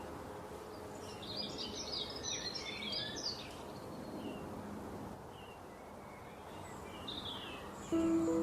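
Songbirds chirping over a steady outdoor background hiss, with a busy burst of high twittering about a second in and single chirps afterwards. Music with held notes comes in just before the end.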